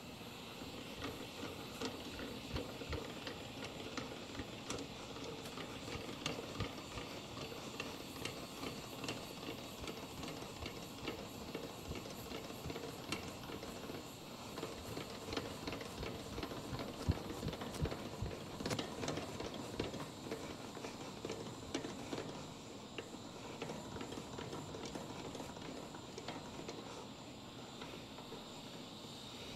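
Hydraulic bottle jack being pumped by its handle, with many small irregular mechanical clicks, as its foot presses down on a trailer tire's sidewall to break the bead from the rim.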